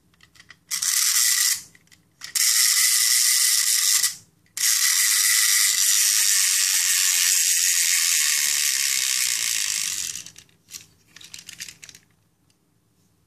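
Clockwork spring motor of a plastic wind-up toy car, its gears whirring in three bursts, the last lasting about five seconds, followed by a few faint clicks.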